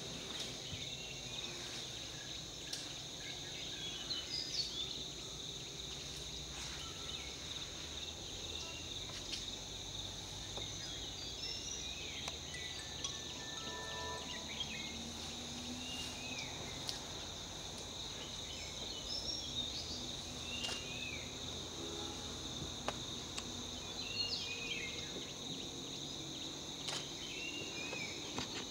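Forest ambience: insects droning steadily at two high pitches, with short chirping bird calls now and then.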